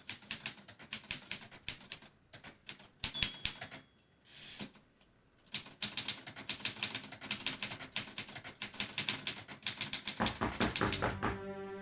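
Manual typewriter typed on in quick runs of key strikes, with a short pause about two seconds in and a longer lull around the middle before the fast typing resumes.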